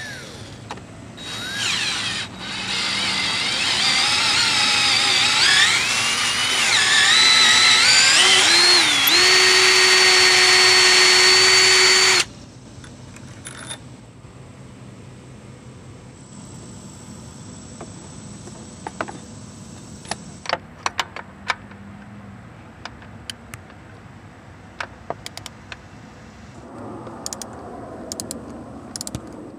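Electric drill with a 5/16 in bit drilling out the threaded bolt passages of a new power steering pump: a loud whine that climbs in pitch over several seconds, then holds steady and cuts off suddenly about twelve seconds in. Scattered light clicks and taps follow.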